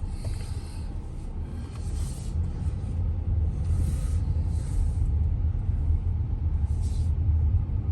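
Car driving: a low, steady rumble of road and engine noise, with a few brief hisses.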